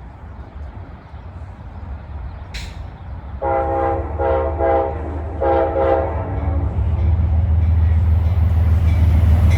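Amtrak P32AC-DM locomotive horn sounding several blasts in a row, starting about three and a half seconds in, the last ones shorter. Under it a low train rumble grows steadily louder as the train approaches.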